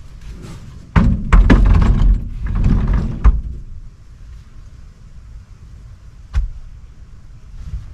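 An Iceco backpack camping cot with an aluminum frame being set down on a camper floor. Its legs and frame knock and thump in a dense cluster for about two seconds, starting a second in, and a single sharp knock follows later.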